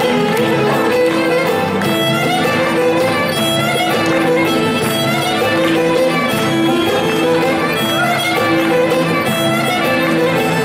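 Live Greek folk dance music from Ikaria: a violin carries the melody over a steady accompaniment of plucked lutes.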